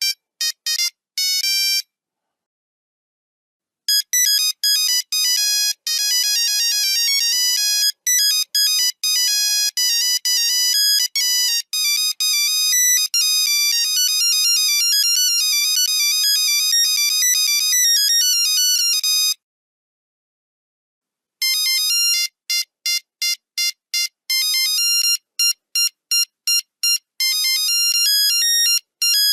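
Nokia 3310 monophonic ringtones playing one after another as high-pitched beeping melodies. One tune ends about a second and a half in. After two seconds of silence a second tune plays for about fifteen seconds, and after another short pause a third begins with quick separate notes.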